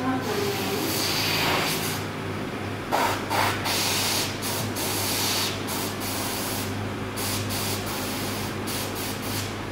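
Compressed air hissing from a dental chair handpiece in repeated short bursts, each a second or less, the bursts getting shorter and quicker near the end, over a steady low hum.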